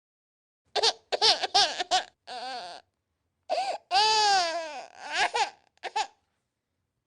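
Infant crying in a string of short sobbing cries, with one longer wail about four seconds in that falls in pitch.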